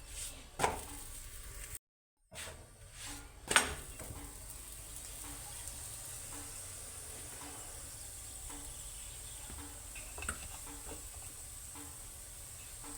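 Food sizzling steadily in a hot pan, with two sharp knocks of a utensil against the pan, the louder one about three and a half seconds in. The sound cuts out briefly about two seconds in.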